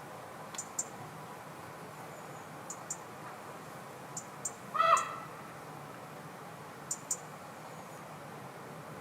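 Birds calling: pairs of short, very high chips repeat every couple of seconds, and one louder, short harsh call sounds about five seconds in.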